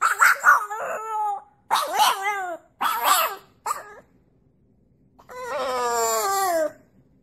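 French bulldog puppy howling: a run of short, wavering howls over the first three and a half seconds, then a pause, and one longer howl that slides down in pitch near the end.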